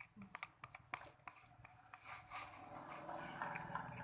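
Spoon stirring a thick mix of white glue, water and liquid soap in a container: light clicks and scrapes against the container, then a denser wet stirring sound, a little louder from about two seconds in.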